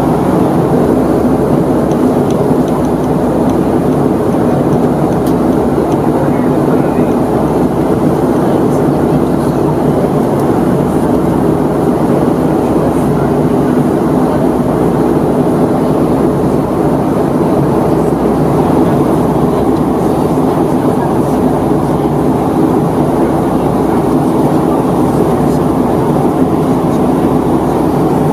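Steady in-flight cabin noise of a Boeing 757-200 airliner: the constant drone of its Rolls-Royce RB211 engines and airflow past the fuselage, heard from inside the passenger cabin.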